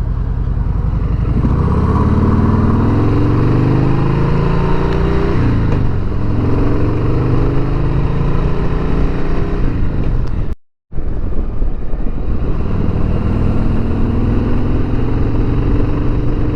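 Harley-Davidson Sport Glide's Milwaukee-Eight 107 V-twin under way, rising in pitch as it accelerates over the first few seconds and again after a brief dip near the middle, then running at a steady speed. The sound cuts out completely for a moment about two-thirds of the way through.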